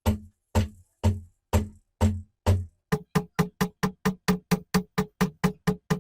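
A drum beat in background music: evenly spaced, pitched drum hits at about two a second that double to about four a second halfway through.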